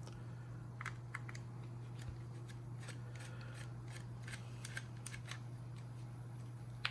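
Small screwdriver backing out the tiny screws that hold the circuit board inside a handheld gas monitor: scattered light clicks and ticks of metal on metal and plastic.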